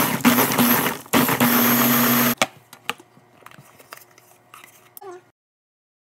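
Ninja pitcher blender running through a frozen-berry smoothie with a steady hum, in two short runs, the second stopping about two and a half seconds in. Light clicks and plastic knocks follow as the motor head is lifted off the pitcher.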